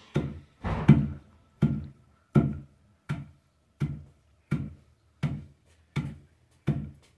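Wooden pilão being pounded with its pestle: a steady run of dull thuds about every three-quarters of a second, crushing roasted peanuts with corn flour into paçoca.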